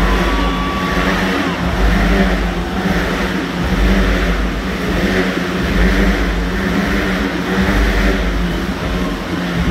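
Several motorcycles running at high revs inside a steel-mesh globe of death, their engine noise swelling and fading about once a second as they circle the sphere.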